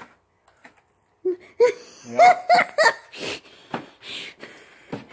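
A high-pitched laugh: a quick run of short ha-ha bursts starting just over a second in, trailing off into softer breathy sounds and rustling.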